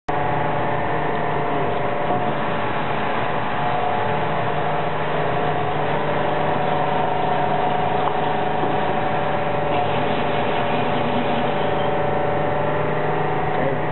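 Seybold Saber IV 58-inch paper cutter powered up and idling, its motor and hydraulics running with a steady hum and a few constant tones.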